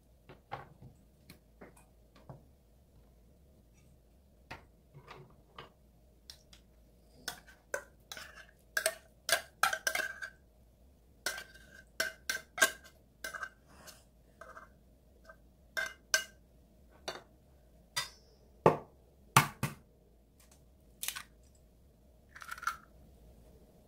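Irregular clinks and taps of a metal utensil against a tuna can and a stainless steel mixing bowl as tuna is scraped out of the can into the bowl, many with a short metallic ring. Two louder knocks come a little after the middle.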